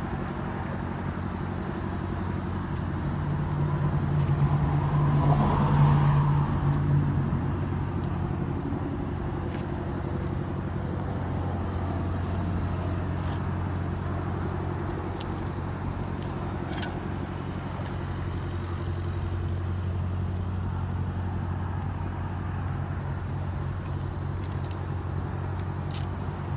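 Cat 303.5E2 mini excavator's C1.7 diesel engine running steadily, swelling louder for about three seconds around five seconds in.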